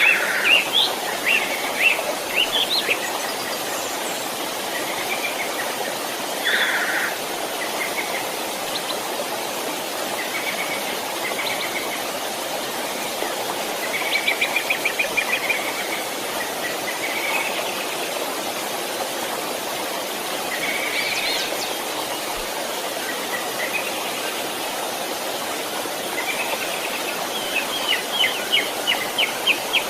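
A stream flowing steadily, with songbirds calling over it: scattered chirps, a fast run of repeated notes about halfway through, and another burst of quick chirps near the end.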